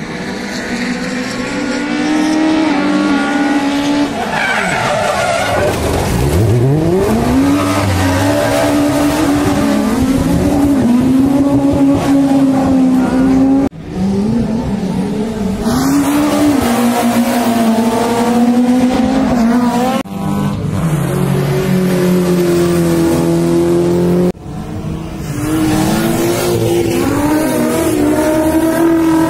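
Rallycross car engines revving hard through a corner, their pitch climbing and dropping with throttle and gear changes, with tyre squeal on the track surface. About six seconds in, one car's note falls sharply as it passes close by. The sound breaks off suddenly three times.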